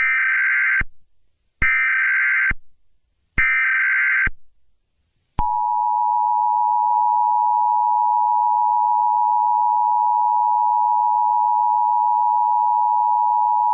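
Emergency Alert System alert signal. It opens with three short screeching data bursts of the SAME header, each just under a second long. About five seconds in, the steady two-tone EAS attention signal starts and runs for about eight seconds.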